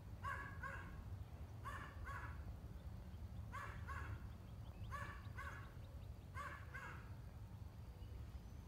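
Faint animal calls: five pairs of short, pitched calls about a second and a half apart, over a steady low rumble.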